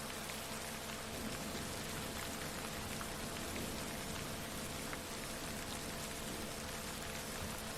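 Steady rain falling, with scattered small drop ticks, layered over a few faint low steady tones, the track's added 'Rife frequencies'.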